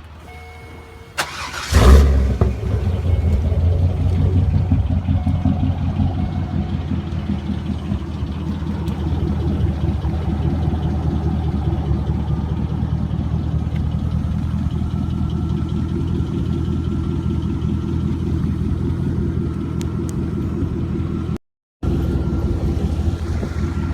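A 2001 Chevrolet Corvette C5's 5.7-litre V8, with its mufflers deleted, being started: the starter cranks briefly, the engine catches with a loud flare of revs, then settles into a steady, loud idle rumble through the unmuffled exhaust.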